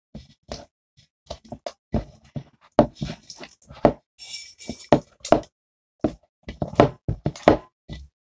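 Sticky slime being kneaded and squeezed by hand close to the microphone, making many irregular short squelches and slaps, with a brief hiss about four seconds in.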